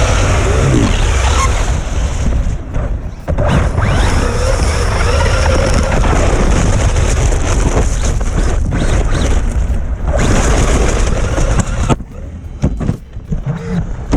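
Radio-controlled truck driving through snow, heard from a camera riding close to it: a loud, steady wash of rumble and wind noise with a faint wavering motor whine. It drops off about two seconds before the end.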